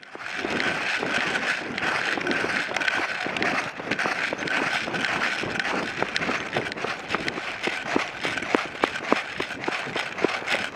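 Running footsteps scuffing and crunching over a dry dirt trail and dry grass, with many short clicks throughout.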